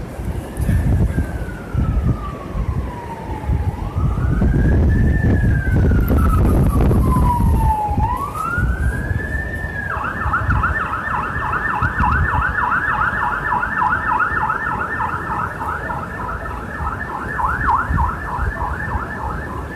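Emergency vehicle siren, first in a slow wail rising and falling about once every four seconds, then switching about ten seconds in to a rapid yelp that repeats several times a second.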